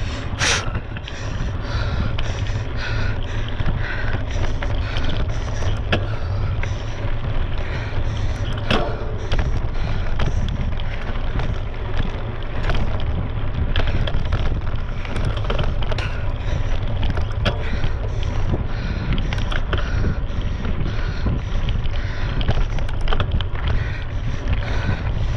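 Wind buffeting a GoPro's microphone on a mountain bike ridden over rough desert ground, with frequent clicks and rattles from the tyres and bike.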